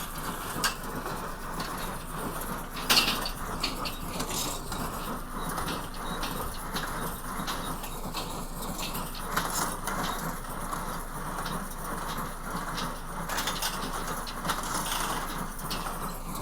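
Harvest machinery running steadily in a wheat field, with scattered clicks and knocks and one louder knock about three seconds in.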